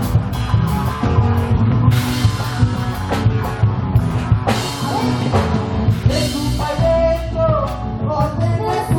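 Argentine folk group playing live: guitars and drums over a steady beat, with a singing voice coming in about six seconds in.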